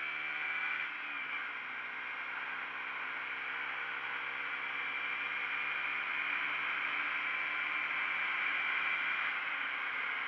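KTM Duke 125's single-cylinder four-stroke engine running on the move, with a steady hiss of wind and road noise over it. The engine note drops about a second in, then holds and slowly climbs.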